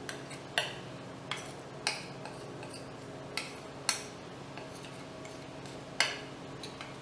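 Utensils stirring flour and egg in a stainless steel KitchenAid mixer bowl, with about seven sharp clinks of metal against the bowl at uneven intervals.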